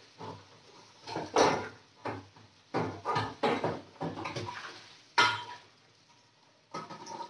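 Metal cookware (a large pot lid and a bowl) clattering and knocking in a stainless-steel sink as it is washed and handled, in irregular clanks, the loudest about a second and a half in and again about five seconds in.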